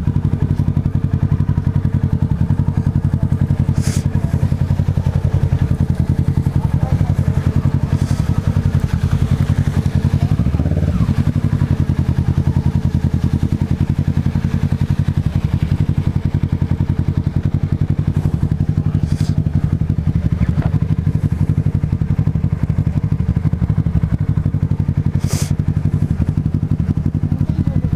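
Small motorcycle engine idling steadily, with a couple of brief clicks.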